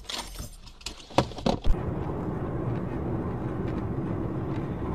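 Three sharp bangs in quick succession a little over a second in, then steady vehicle driving noise.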